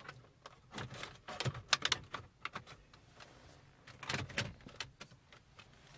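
Wiring cables and plastic dashboard trim being handled as the cables are slid through the screen bracket opening: irregular clicks, knocks and rustles, a little louder about two seconds in and again about four seconds in.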